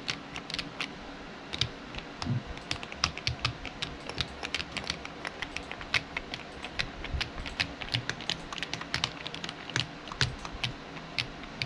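Mechanical keyboard switches (Akko Mirror switches in an RK100 Pro) clacking as keys are pressed, a quick irregular run of several clicks a second.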